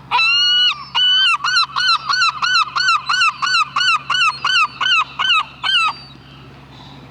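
A bird giving a loud series of honking calls: two longer calls, then a quick run of short calls at about three a second, each rising and falling in pitch, stopping about six seconds in.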